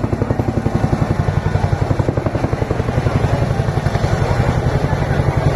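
Chinook tandem-rotor helicopter's rotor blades beating in a rapid, even pulse of roughly nine beats a second over a deep, steady hum, growing slightly louder toward the end.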